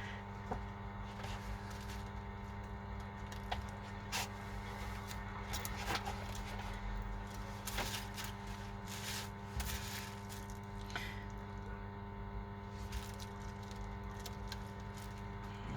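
Scattered small clicks, taps and light scrapes of hand tools and phone parts being handled during iPhone screen repair work, over a steady electrical hum.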